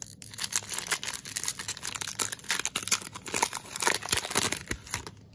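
Shiny foil wrapper of a 2020 Panini Prizm baseball card pack being torn open and crinkled by hand, a dense crackle that dies away near the end.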